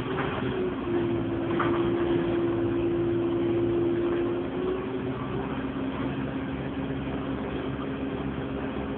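ADL Enviro200 Dart single-deck bus driving, its engine and drivetrain heard from inside the saloon as a steady drone. A steady whining tone comes in about a second in and fades away near the middle.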